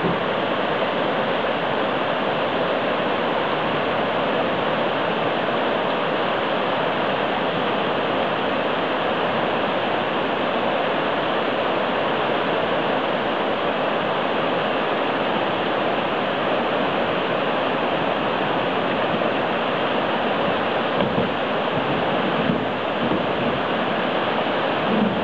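River rapids rushing steadily over a shallow cobble riffle, with a few soft knocks near the end.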